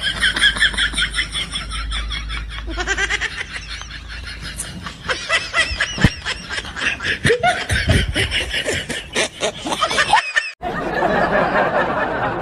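People laughing in a long run of quick, giggling pulses that stops shortly before the end.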